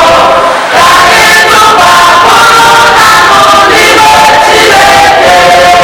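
A group of voices singing a church song together, holding long notes, with a brief dip about half a second in.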